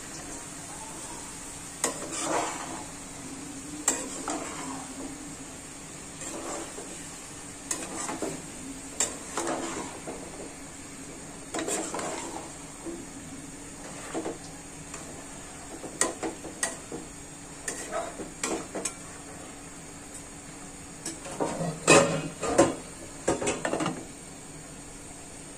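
A metal spoon scrapes and clinks against an aluminium pan as chunks of beef liver and potato are stirred, in irregular strokes over a steady low hum. Near the end comes a run of louder clinks as a glass lid is set on the pan.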